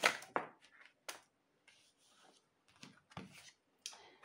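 Oracle cards being shuffled by hand, then a card slid out of the deck: a short burst of card rustling at the start, followed by scattered soft slides and clicks.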